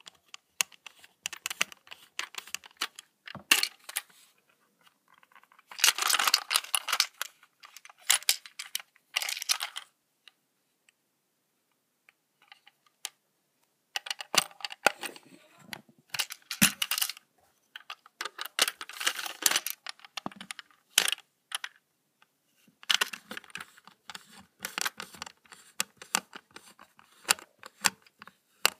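Hands handling a toy train's box and packaging: irregular bursts of clicks and rustling, with a pause of a few seconds in the middle.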